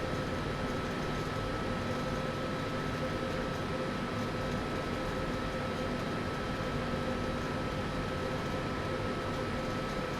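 Steady hum of running machinery and ventilation in a technical equipment room: an even rushing noise with a few constant tones, one midrange and one higher, that do not change.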